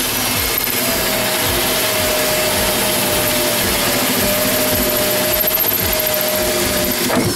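Corded electric drill running steadily under load as its bit bores through to enlarge a hole, then winding down near the end.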